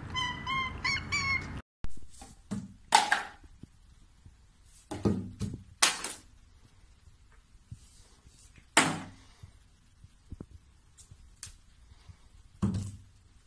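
A few quick high chirps from a cat. Then a series of separate thunks and clatters as plastic toiletry bottles are pawed over and knocked off a shelf.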